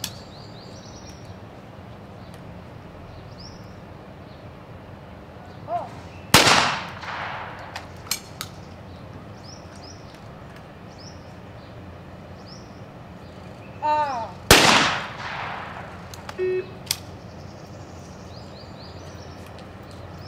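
Two trap shotgun shots about eight seconds apart, each followed by a long echo rolling across the open range. Each is preceded by the shooter's short call for the target. A few light clicks come between the shots.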